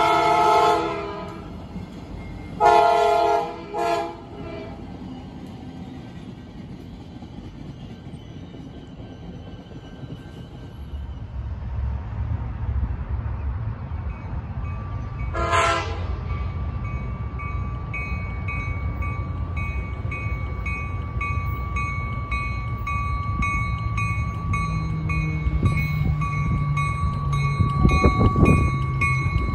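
Commuter train horn blowing at a grade crossing, with a second short blast a few seconds in. Then the low rumble of a commuter train approaching, growing louder, with one short horn blast in the middle and a steady repeating ringing, like the train's bell, as it draws into the station.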